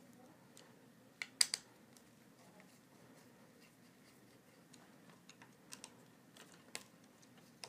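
Light, scattered clicks and taps of a screwdriver working screws and plastic parts on a Prusa i3 MK3 3D printer, with a quick cluster of sharper clicks about a second and a half in.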